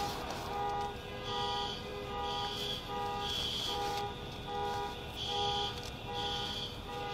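An electronic alarm sounding in a repeating pattern: a steady lower tone with higher beeps pulsing about once a second, pausing briefly near the middle.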